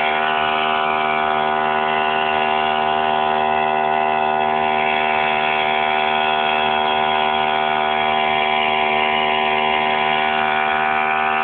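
Small two-stroke brush cutter engine running at a steady high speed, one unchanging buzzing tone.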